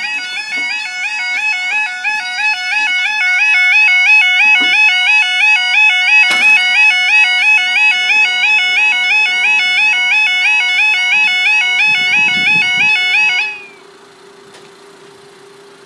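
Level crossing warning alarm, the British 'yodel' type: a loud electronic two-tone warble switching rapidly between pitches while the barriers come down, which cuts off suddenly near the end. After it only a quiet steady hum remains.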